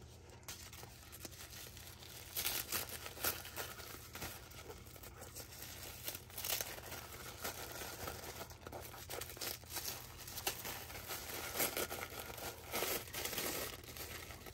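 Paper crinkling and rustling in irregular bursts as a mail package of paper goods is handled and unwrapped, busier from about two seconds in.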